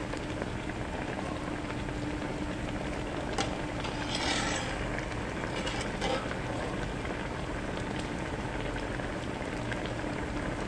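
Beef bulgogi simmering and bubbling in its sauce in an aluminium pot, with a spatula stirring and scraping through it, loudest about four seconds in, and a couple of sharp clicks. A steady low hum runs underneath.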